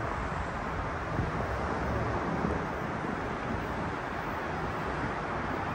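Steady wind rushing over the microphone, a constant noise with a low rumble underneath.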